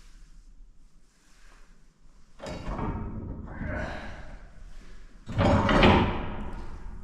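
Silo unloader being lowered in the silo, with metal clattering and scraping that starts about two and a half seconds in and is loudest about five and a half seconds in.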